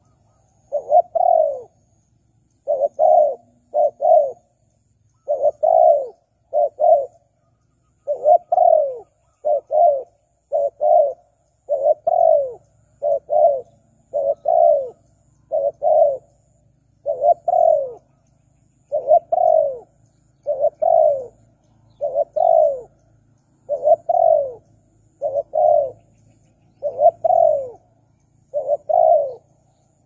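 Spotted dove cooing over and over: short coos, each sliding down a little in pitch, in quick groups of two or three with brief pauses between them.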